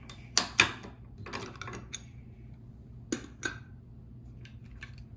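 Sharp metallic clicks and clinks of VZ58 rifle parts being handled: two clicks about half a second in, a quick cluster around a second and a half, two more around three seconds, then a few faint ticks near the end.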